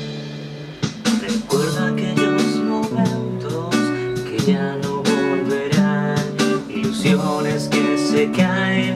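Song intro: strummed acoustic guitar chords with a steady rhythm, before the vocals come in.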